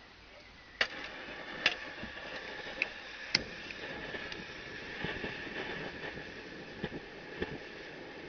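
Optimus 199 pressure stove's burner lighting on paraffin after priming: about a second in it catches with a sharp pop and goes into a steady roar, with a few more pops over the next seconds as it settles to a blue flame.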